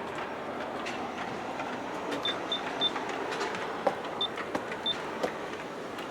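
G-scale model coal train running on its track: a steady rumble of the locomotives' motors and the metal wheels of the hopper cars, with scattered sharp clicks, more of them from about two seconds in. A few short high-pitched beeps sound over it.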